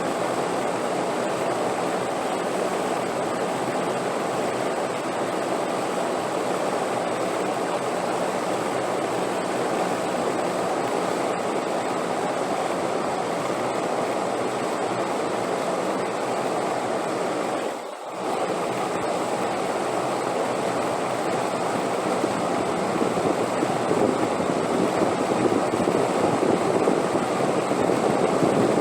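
Steady rushing wind noise, an even, unbroken whoosh that dips briefly about two-thirds of the way through and grows slightly louder near the end.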